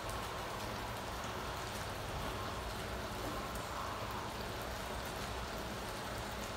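Chicken in a thick tomato sauce sizzling and bubbling in a steel wok: a steady crackle with faint scattered pops.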